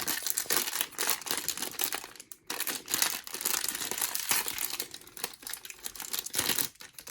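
Crinkling and tearing of a blind-box figure's plastic wrapping as it is torn open and handled, with brief lulls about two and a half seconds in and near the end.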